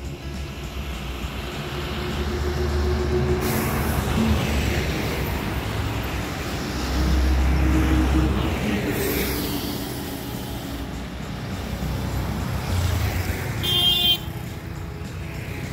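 Road traffic on a mountain highway: vehicle engines rumbling past, swelling twice as they go by, with a short horn toot near the end.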